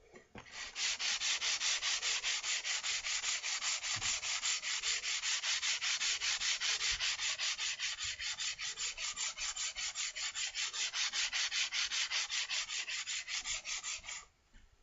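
Steel of a Sargent block plane being lapped flat by hand on 120-grit sandpaper wetted with window cleaner: quick, even back-and-forth scraping strokes, about four or five a second. It starts about a second in and stops shortly before the end.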